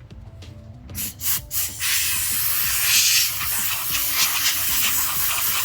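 Compressed air hissing from a blower, cleaning dust off a phone screen before the protector goes on: three short puffs about a second in, then a steady blast.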